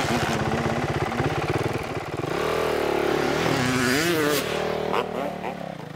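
Dirt bike engine running close by with a fast, even firing beat, then revving up and down from about two seconds in as the bike pulls away, fading near the end.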